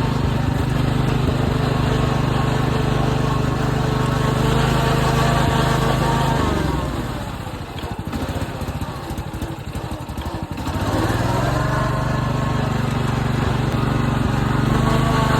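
Riding lawn mower's engine running steadily, then slowing down about six seconds in and dropping lower for a few seconds before speeding back up to its earlier running speed.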